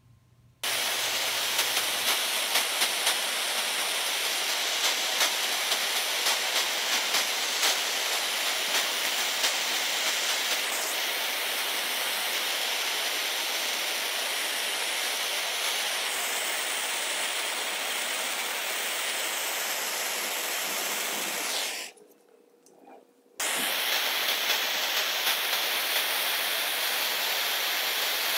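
Handheld propane torch burning with a steady, even hiss as its flame chars the surface of oak, with small crackles throughout. The hiss starts about half a second in, drops out for about a second and a half near the end, then comes back.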